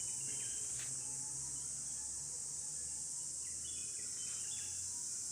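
Steady high-pitched background noise with a faint low hum underneath and a few faint short chirps.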